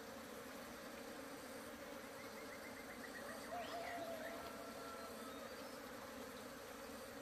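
Honeybees buzzing steadily around an open hive as a colony settles onto the frames of a new box. A faint short whistling sound comes about halfway through.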